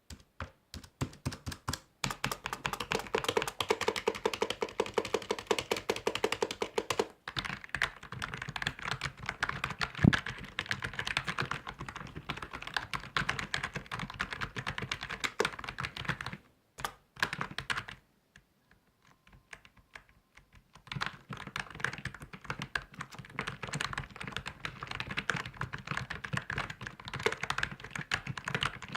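Computer keyboard being typed on fast, a rapid run of key clicks. The typing stops for a few seconds just past the middle, then starts again. There is one louder knock about a third of the way in.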